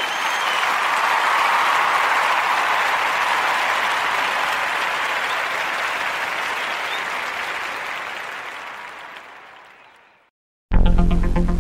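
Crowd applause that swells in, holds steady and fades away over about ten seconds. Near the end, electronic music with a heavy bass starts abruptly.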